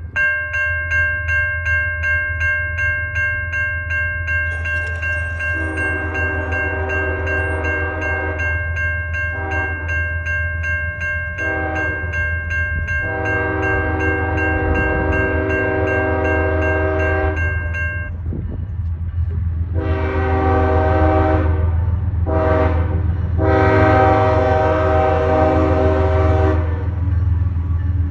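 CSX diesel locomotive's air horn sounding a string of long and short blasts, played in an irregular pattern over the steady low rumble of the approaching train. A grade-crossing warning bell rings fast and steadily, then stops about eighteen seconds in.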